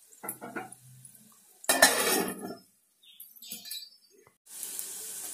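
Aluminium pot lid clinking and clattering against the pot, loudest about two seconds in. Near the end a steady sizzle starts: onions, garlic and chillies frying in oil.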